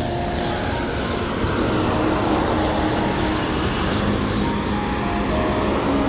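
Town traffic noise, a steady motor-vehicle rumble, with soft music running underneath.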